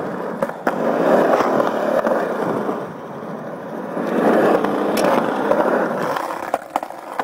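Small hard wheels rolling over concrete skatepark ramps. There is a steady rumble that swells and fades with speed, and a few sharp clicks as the wheels cross the seams in the concrete.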